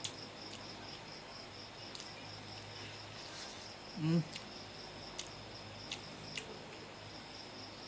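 Cricket chirping steadily in rapid, even pulses. A few sharp clicks sound over it, and there is one brief low vocal sound about four seconds in.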